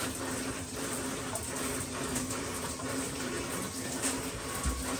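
Shower running steadily into a tub, with a faint steady low hum underneath: water being run through freshly turned-on lines to flush the air out, the flow picking up as the air clears.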